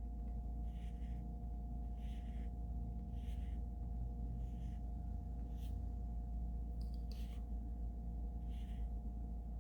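Faint steady hum of a few held tones, with soft faint ticks now and then.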